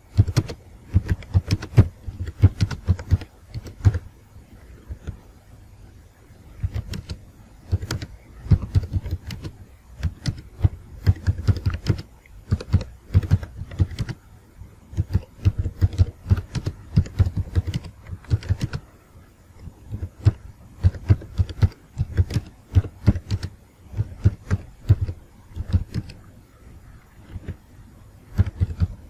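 Typing on a computer keyboard: quick runs of key clicks broken by pauses of a second or two.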